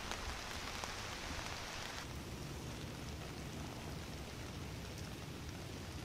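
Steady light rain falling on dead leaves and straw. The hiss grows slightly duller about two seconds in.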